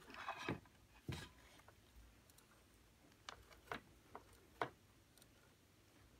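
Handling noise from a Drobo Mini storage enclosure being lifted and turned over by a gloved hand: a brief rustle, a knock about a second in, then a few light clicks.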